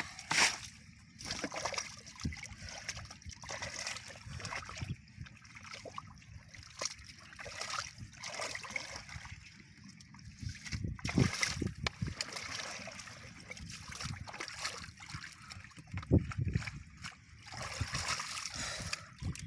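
Shallow muddy water splashing and sloshing at uneven intervals as people wade and grope through it by hand.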